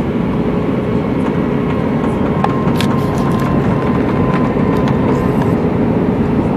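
Airbus A319 airliner's engines and airflow: a loud, steady, even noise with a faint steady hum running through it and a few light clicks.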